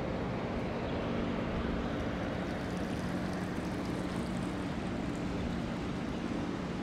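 Steady background rumble with a low, even hum, like city or large-building ambience while walking; nothing stands out from it.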